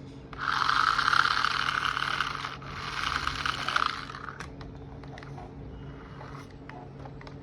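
Toy RC bulldozer working, heard as two bursts of gritty, scraping mechanical whirring: one about two seconds long, then after a brief break one of about a second and a half. Small clicks and a faint steady hum follow.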